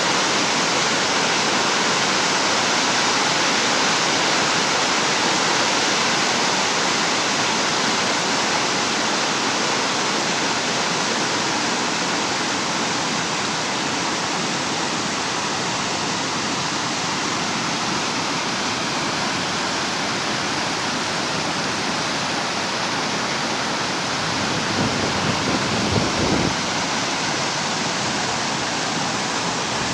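Storm-swollen waterfall in a ravine: a steady, loud rush of falling water with no break, and a brief low swell in the rushing about 25 seconds in.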